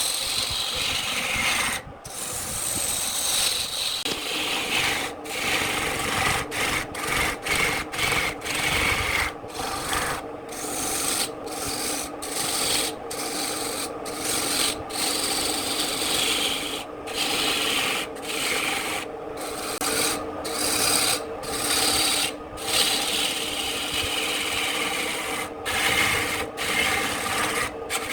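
A tool working wood that is spinning on a wood lathe. A continuous scraping rasp is broken by many brief gaps as the tool comes off the wood and goes back on, with the lathe's steady hum underneath.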